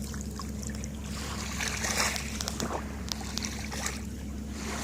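Shallow water trickling and lightly splashing, with a few small splashes and clicks about two and three seconds in, over a steady low rumble.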